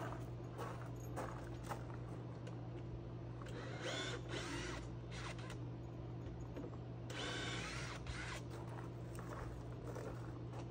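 Cordless drill-driver running in two bursts of about a second each, around four and seven seconds in, its motor whine bending in pitch as it backs screws out of a plywood shipping crate. Light clicks and knocks in between, over a steady low hum.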